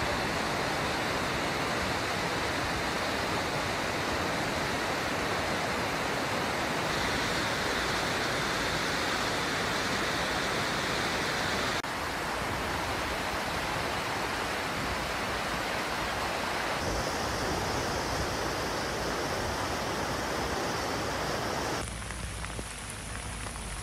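Steady rushing noise of floodwater and heavy rain, its tone shifting abruptly several times, a little quieter near the end.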